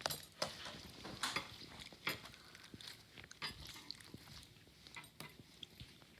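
Slime being squished and worked by hand, making a run of sticky clicks, crackles and small pops.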